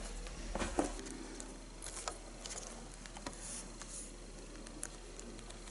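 Light handling noise as a smartphone is picked up and turned over in the hand: a couple of soft clicks about half a second in, then faint scattered taps and rustles.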